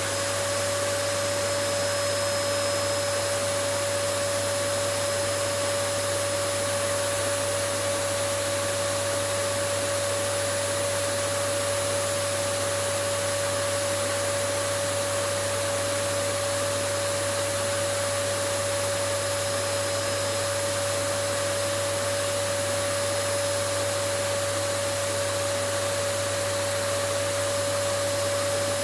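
Vacuum cleaner running steadily: a constant rushing of air with a steady high-pitched motor whine that does not change.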